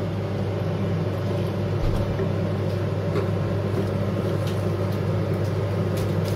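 A wooden spoon stirs risotto in a stainless steel pot, with a few faint scrapes and ticks, over a steady low electrical hum.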